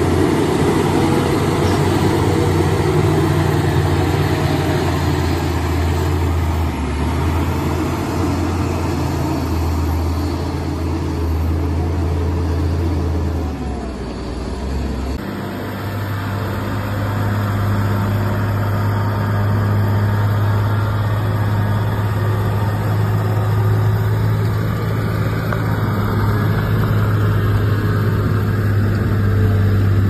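Heavy diesel truck engines running under load with a steady low drone: first a red tractor unit on a slope, then, after a cut about fifteen seconds in, an IVECO dump truck overloaded with huge stone blocks, moving slowly.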